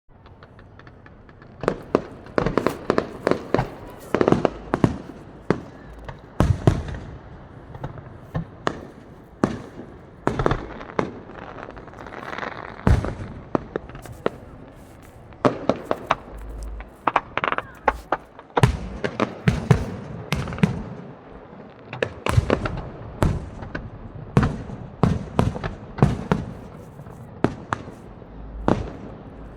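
Aerial fireworks going off: a rapid, irregular series of sharp bangs and cracks, with thick runs of bursts and short lulls between them.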